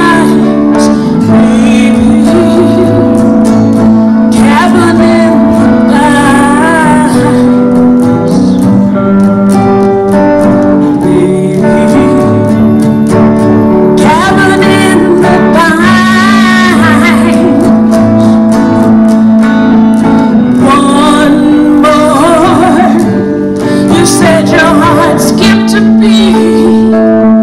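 Live acoustic music: a woman singing with held, wavering notes over two acoustic guitars.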